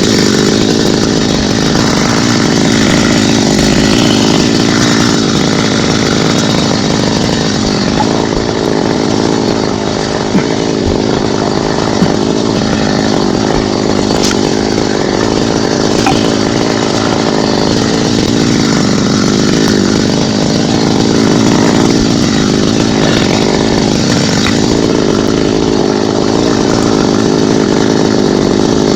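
Chainsaw running steadily under load, cutting into a thambakam tree.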